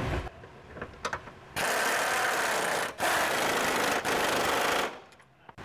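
Power wrench spinning a socket to run down and tighten the last subframe bolt, running in three short stretches over about three seconds.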